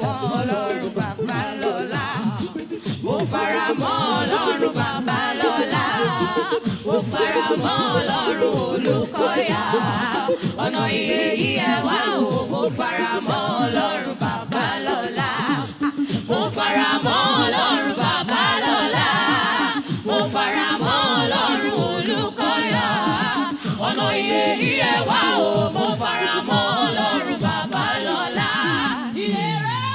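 Gospel choir singing a worship song over a steady beat.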